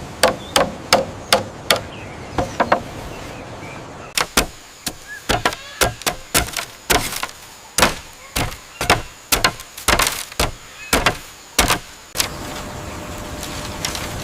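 A long run of sharp knocking blows, about two to three a second, like something being struck over and over; they break off briefly about three seconds in, resume about a second later, and stop about twelve seconds in.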